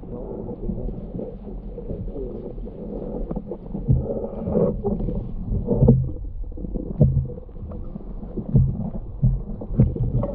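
Muffled underwater noise heard through a submerged action camera's housing: a dull low rumble of moving water with irregular soft thumps and knocks, about five louder ones spread through.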